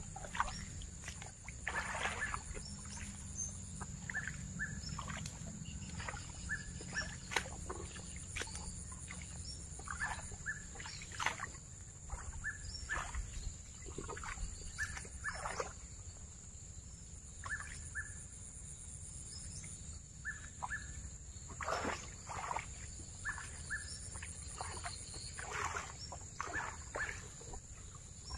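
Outdoor ambience of birds calling in short, repeated paired chirps over a steady high-pitched insect drone, with occasional short sharp knocks.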